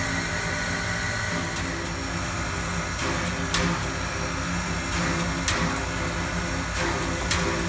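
Frisco 1630 steam locomotive standing under steam: a steady hiss and hum of escaping steam and running machinery, broken by a few sharp clicks.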